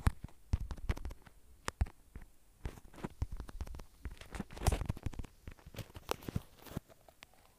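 Irregular, quick clicks and taps of typing on a smartphone's touchscreen keyboard.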